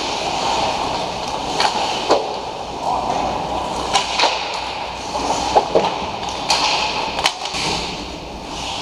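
Ice hockey skate blades scraping and carving on the ice, with a dozen or so sharp clacks of sticks and puck at irregular moments.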